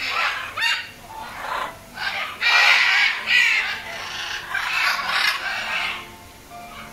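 Macaws squawking: a run of harsh, raspy calls, several overlapping, that die down near the end.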